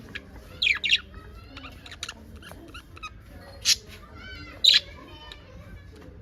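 Pet parakeets chattering with a run of soft chirps, broken by loud sharp squawks: two close together about a second in, then single ones at about the middle and two-thirds of the way through.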